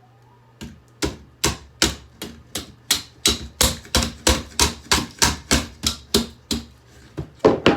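A hammer striking an old hairdryer over and over to break a part off, about three sharp blows a second, the last two the loudest.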